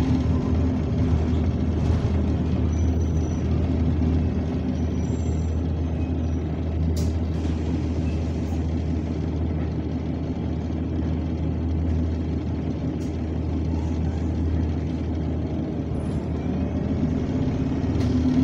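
Double-decker bus's engine and air compressor running with a steady drone, heard from inside the passenger saloon.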